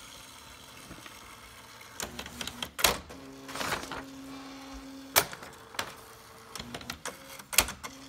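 Panasonic R435 electronic thermal typewriter printing its built-in demo on its own. The carriage and paper-feed mechanism give several sharp clicks at uneven intervals, with a short whirr and a steady motor hum for about two seconds midway.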